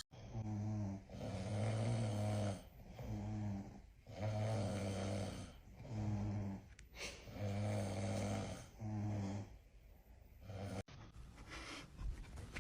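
Rhythmic snoring, about one breath every three seconds, each a short snore followed by a longer one; it cuts off abruptly about eleven seconds in.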